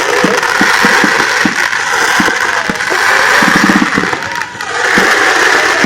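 Fireworks going off: a loud, dense crackle with many quick low pops.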